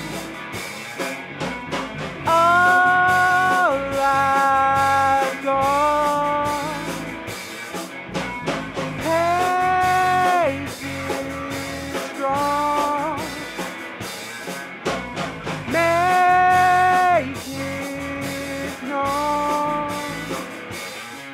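Instrumental break in a blues-rock song: a lead line of long held notes that slide up into pitch, over guitar and a steady beat.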